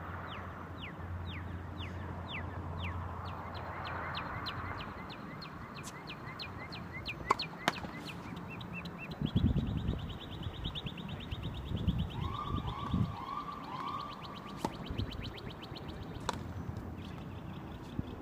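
A steady series of short high chirps, slow at first and speeding up to a rapid trill about halfway through, over open-air court ambience. A few sharp knocks of tennis balls being struck or bouncing come about seven seconds in and again later.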